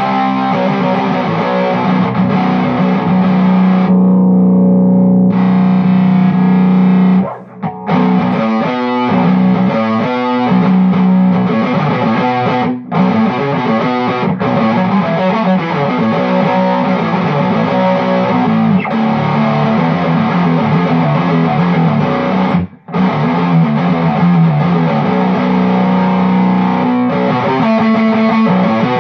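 Electric guitar with a Bare Knuckle Black Dog bridge pickup, played through a Mesa Boogie F30 amp on high gain boosted by a Precision Drive pedal. A low chord is held ringing for the first several seconds, then the playing turns to rhythmic riffing with brief stops about 7 and 23 seconds in.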